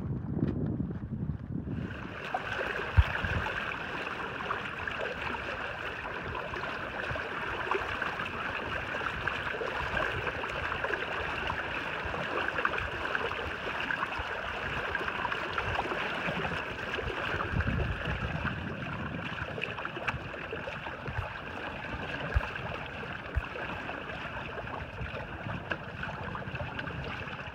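Water rushing and splashing past a small sailing catamaran's hulls as it moves through choppy river water, with wind buffeting the microphone. A sharp knock stands out about three seconds in.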